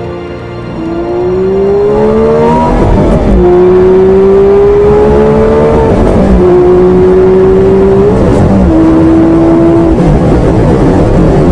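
Porsche 997 GT3's flat-six engine accelerating hard, heard from inside the cabin. Its pitch climbs steadily in each gear and drops sharply at three quick upshifts made with a short-throw shifter.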